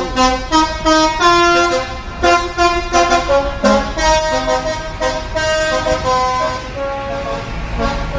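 Telolet-style multi-tone bus horn playing a melody: a quick run of short horn notes jumping between pitches.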